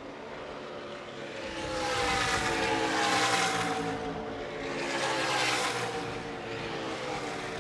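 NASCAR trucks' V8 engines at speed on the track during practice, passing in waves, with the engine note slowly falling.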